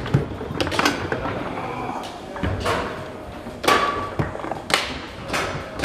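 Foosball being played with two balls: hard knocks and clacks as the balls are struck by the plastic men and hit the table walls and goal, and rods bang against their bumpers, coming irregularly about a second or so apart. There is a brief high squeak a little before four seconds in.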